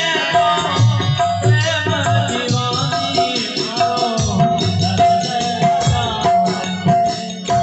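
Live bhajan music: a dholak drum played by hand, with harmonium, jingling hand percussion and a man singing at times.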